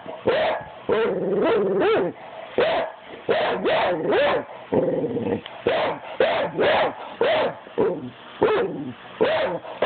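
Pit bull barking over and over, about two barks a second, a few of them drawn out longer and wavering in pitch.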